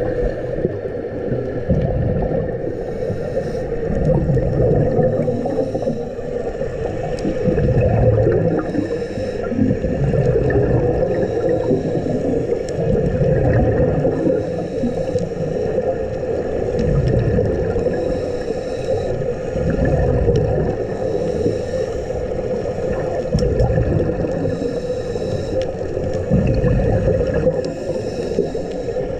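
Scuba diver breathing through a regulator underwater: a short hiss with each breath in and a gurgling rush of bubbles on each breath out, repeating every few seconds over a steady underwater hum.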